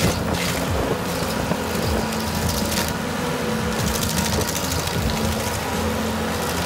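Red Roo tracked stump grinder's engine running steadily under load while its spinning cutter wheel grinds into a tree stump, with short bursts of harsher chipping noise as the teeth bite into the wood, once at the start and again near three seconds in.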